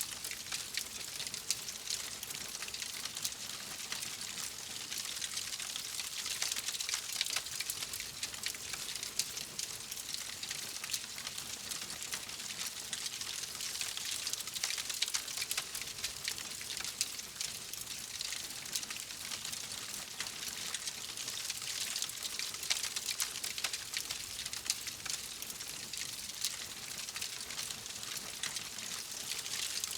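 Wood fire crackling steadily in a fireplace, a dense run of small pops and snaps.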